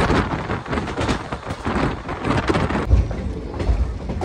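Passenger train in motion: dense rattling and clatter of the running coaches, with rushing wind buffeting the microphone. About three seconds in the clatter thins and heavy low wind buffets take over.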